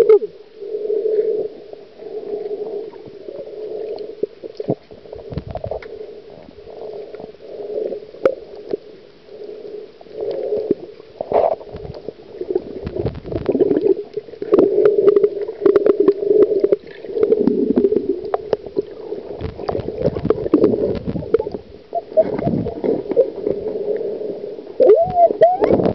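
Muffled underwater gurgling from a snorkeler breathing through a snorkel, rising and falling in irregular surges with deeper rumbling swells, and scattered faint clicks.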